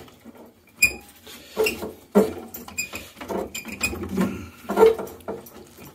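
Worcester Bosch boiler fan assembly being twisted by a gloved hand to release it from the heat exchanger: irregular clicks, knocks and scrapes of the housing shifting in its mounting.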